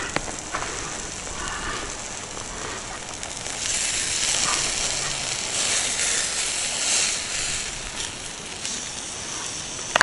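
Steady hiss and crackle of a campfire with burger meat frying on a hot stone over it, growing louder from about three and a half seconds in.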